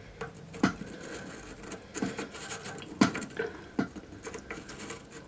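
Small toilet plumbing parts, washers and fittings, being handled: irregular light clicks and taps, about one a second.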